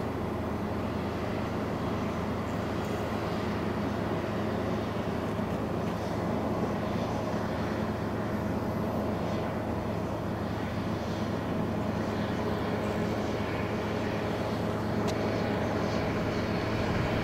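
Steady low mechanical drone with several held humming tones, getting slightly louder near the end.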